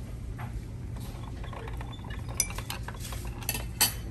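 Cutlery clinking against dishes: a run of light clicks and clinks over a steady low room hum, the sharpest clink near the end.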